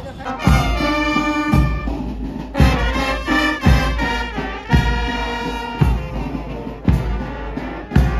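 Police brass band playing, with trombones, saxophones and other brass holding chords over a deep drum beat about once a second.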